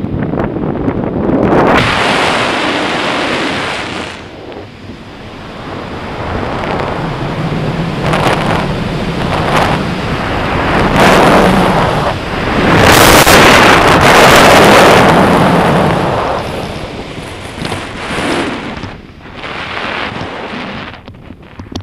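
Wind rushing over the camera's microphone during a parachute descent under canopy, surging and easing in gusts, loudest a little past the middle and becoming choppier near the end as the jumper nears the ground.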